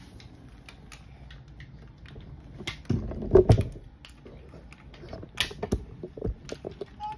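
Plastic Lego bricks clicking and clattering as pieces are handled and pressed together, with a louder cluster of knocks about three seconds in.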